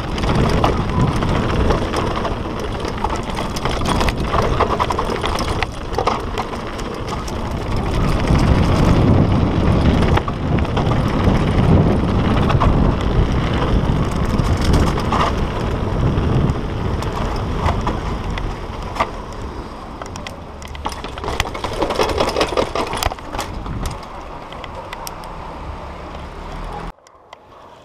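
Hardtail mountain bike descending a dirt trail: knobby tyres rolling over dirt and stones, with a heavy low rumble and a constant clatter of rattles and knocks from the bike. The noise eases in the last stretch as the bike reaches pavement, then cuts off abruptly near the end.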